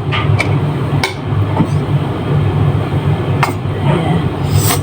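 A steady low hum with a few sharp clicks of a utensil against a container as mustard is measured out by the teaspoon.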